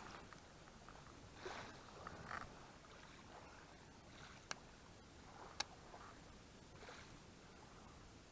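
Quiet outdoor background with a few faint soft swishes, then two sharp clicks about a second apart near the middle.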